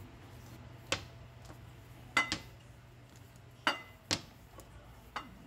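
Rolling pin working a sheet of dough, knocking against a glass baking dish and the counter about seven times at uneven intervals, some knocks with a short glassy ring.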